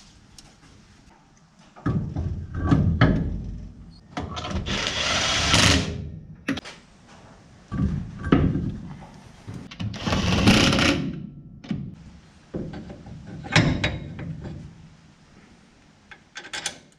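Workshop tool work on a car: scattered metal knocks and clatters, with two loud, noisy bursts of about a second each from a power tool, about five seconds in and again near ten seconds.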